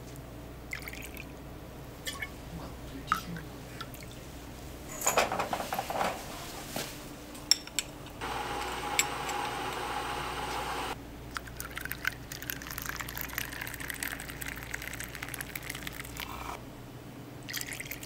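Liquid being poured: a steady pouring stream that starts and stops sharply, lasting about three seconds, amid light clicks and knocks, with a louder splashing burst a few seconds before it.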